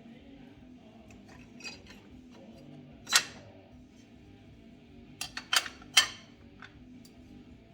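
Clutch plates clinking as they are set into the clutch basket. There is one sharp clink about three seconds in, then a quick run of four clinks around five to six seconds.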